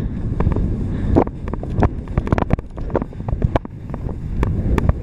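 Wind rushing over the camera microphone while sliding downhill, mixed with irregular scraping and clattering of skis or board over slushy, uneven snow.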